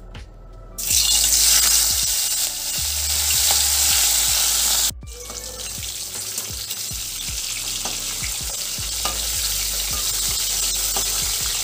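Turmeric-coated hilsa fish steaks sizzling as they go into hot mustard oil, then frying steadily. The sizzle starts suddenly about a second in, drops abruptly about halfway through and carries on quieter.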